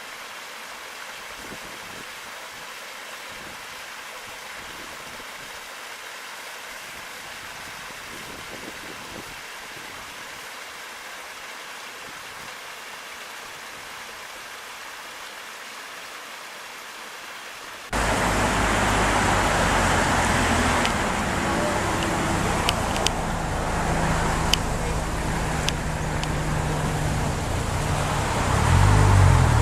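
A rain-swollen stream's small waterfall rushing steadily. About two-thirds of the way in it cuts abruptly to a much louder motor vehicle engine running, with a few sharp clicks, its pitch rising near the end as it speeds up.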